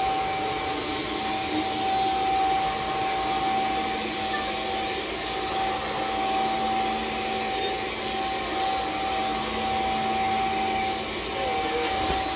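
Cordless stick vacuum cleaner running steadily as it is pushed over carpet: an even motor whine over a rush of air.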